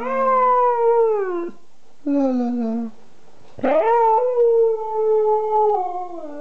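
Siberian husky howling in drawn-out calls. A falling howl comes first, then a shorter, lower call. The longest howl begins a little past halfway, holds its pitch and slides down at the end.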